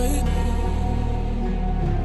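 Background music with held, sustained notes over a steady bass.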